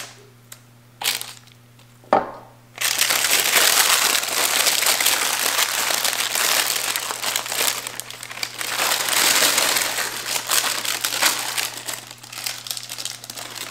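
Parchment paper crinkling and rustling continuously as cooked chicken pieces are shaken out of it into a Dutch oven, starting about three seconds in after a couple of soft knocks.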